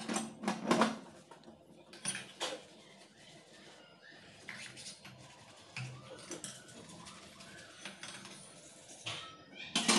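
Brass lamps and cups knocking against a stainless-steel sink and each other while being scrubbed with a scouring sponge. The loudest clatters come in the first second, again about two seconds in, and just before the end, with lighter knocks and rubbing in between.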